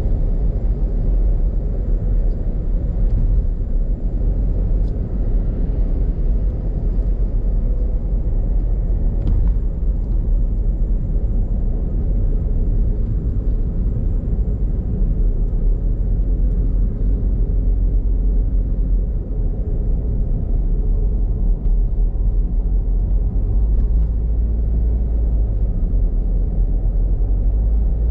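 Steady low rumble of a car driving at speed on an elevated expressway: tyre and wind noise.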